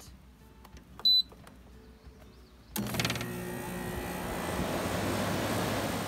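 A GE window air conditioner's control panel beeps once as it is switched on; about two seconds later its fan starts up and runs with a steady rush of air over a low hum.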